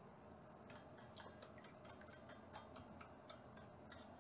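Metal measuring spoon clinking against the rim and sides of a small stainless steel bowl as dark soy-based sauce is stirred: quick, light ticks, about five a second, starting under a second in.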